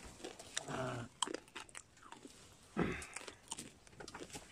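An animal's short, low call about a second in, then a breathy grunt near three seconds, over scattered light clicks and knocks.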